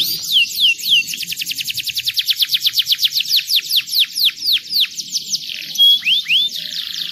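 Domestic canary singing: a long, fast roll of rapidly repeated downward-sweeping notes that slows into a few longer descending whistles, then breaks off into a couple of separate whistled notes near the end.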